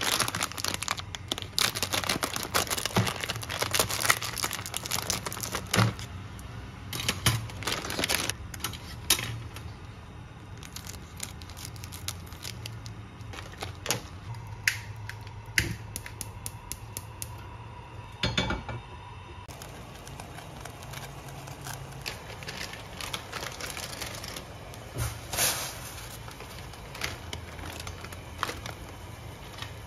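Plastic instant-ramen packets and seasoning sachets being handled, crinkled and torn open, making many sharp crackles that are densest in the first ten seconds and then come more sparsely. A steady low hum runs beneath them.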